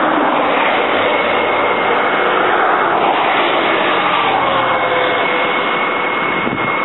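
Road traffic passing close by: a loud, steady rush of a vehicle going past, its engine note falling in pitch in the second half.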